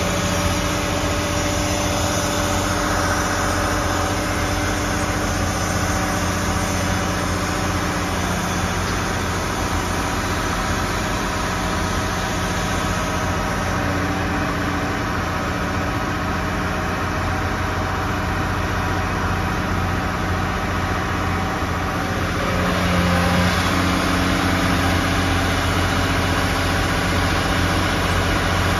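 Cat 6015B hydraulic excavator's diesel engine running steadily with a constant low hum, getting a little louder about 22 seconds in.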